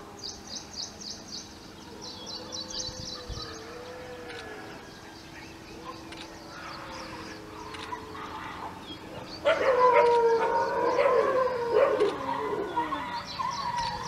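A dog howling and whining in long wavering notes, faint at first, then much louder from about two-thirds of the way in, with notes that slide down in pitch. A rapid high-pitched chirring is heard in the first few seconds.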